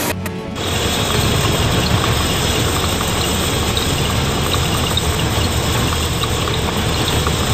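Portable bandsaw mill running steadily as its band blade cuts through a log, with the low hum of the mill's engine under the sawing noise.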